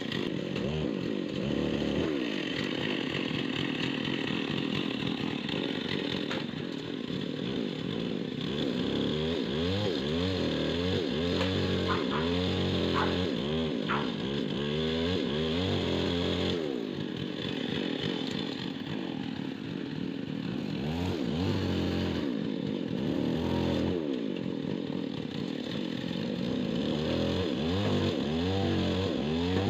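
Chainsaw running throughout, its engine pitch rising and falling over and over as the throttle is opened and eased while cutting a large dry tree.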